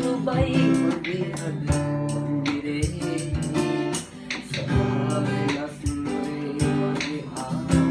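Acoustic guitar strummed in a steady rhythm, accompanying a young male singer performing a Sinhala song.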